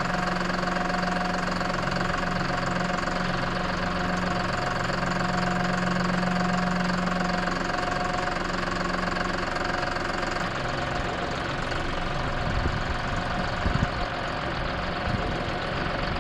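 Tractor engine running steadily with a constant hum, which settles to a lower, rougher sound about nine seconds in. A few short thumps or rattles come near the end.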